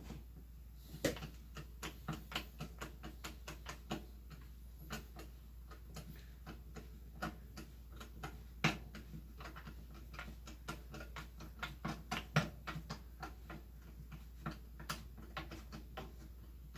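Flathead screwdriver backing a screw out of a Commando Mark45 rifle: a faint, irregular run of small metal clicks and ticks, several a second, with a few louder taps.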